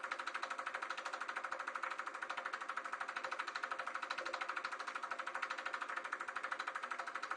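Sankyo Dualux 1000 8mm movie projector running, its film transport making a rapid, even clatter over a steady motor hum.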